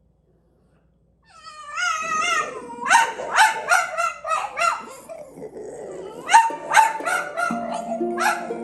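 French bulldogs howling with a wavering cry, then breaking into a quick run of short, sharp barks and yips, about three a second. Plucked harp-like music comes in near the end.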